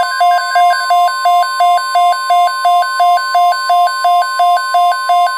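Weather radio alert: a steady NOAA Weather Radio warning alarm tone sounding under loud, rapidly repeating electronic beeps, about three a second. The alarm signals an incoming severe thunderstorm warning.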